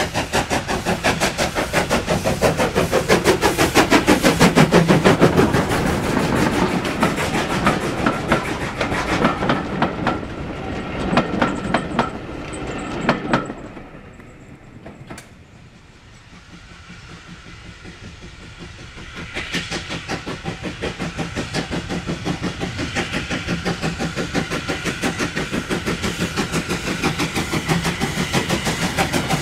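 Drummond LSWR T9 4-4-0 steam locomotive under steam, its exhaust beating in a rapid, regular rhythm as it passes with its coaches. The sound dies away about halfway through. A few seconds later the beats start up again as the engine approaches once more.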